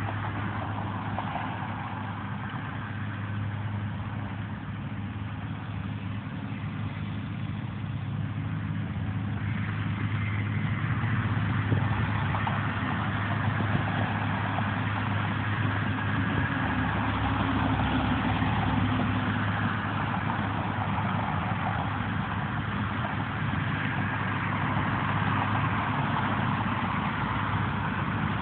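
Road traffic with truck and car engines running: a steady low engine hum under a haze of road noise, growing louder about ten seconds in and staying up.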